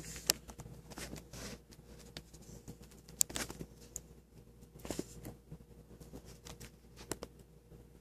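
Handling noise of a handheld camera being moved around a parked motorcycle's engine: irregular light clicks and rustles, the sharpest about a third of a second in and just after three seconds, over a faint steady hum. The engine is not running.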